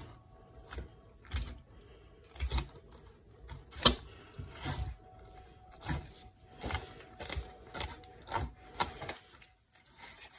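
A fillet knife making about a dozen sharp, irregular clicks and ticks as it cuts a fillet off a walleye's rib cage. The loudest click comes about four seconds in, and the clicks stop shortly before the end.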